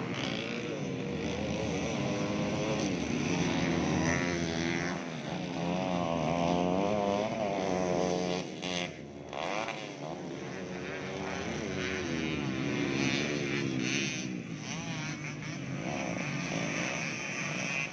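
Several motocross bikes racing around a dirt grasstrack, their engines repeatedly revving up and dropping back in pitch as they accelerate and shift, with a brief lull about halfway through.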